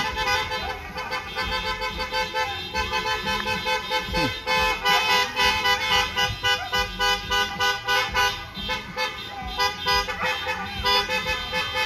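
Car horn honking in rapid, repeated short toots, growing louder and more regular about four seconds in: drive-by birthday honking from a passing car.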